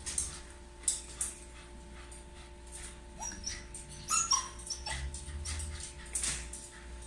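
Shiba Inu whimpering in short, high whines, a few of them from about three seconds in, distressed at being left home alone. Scattered clicks and rustles run alongside.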